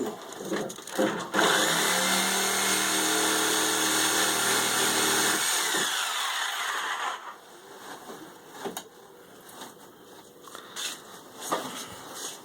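Reciprocating saw (Sawzall) cutting pipe. It starts about a second and a half in, runs steadily for about six seconds, then stops, leaving a few small knocks and clatter.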